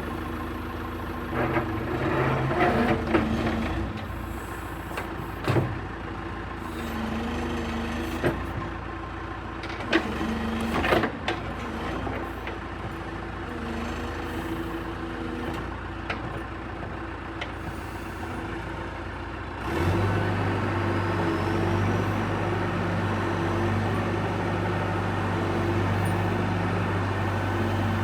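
John Deere 410G backhoe's diesel engine running steadily, with several sharp clanks and knocks in the first half. About two-thirds of the way through, the engine speeds up and stays louder.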